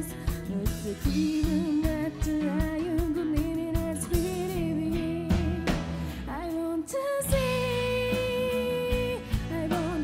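Live rock band: a woman singing into a microphone over electric guitar, bass and drums. About seven seconds in she holds one long note for around two seconds.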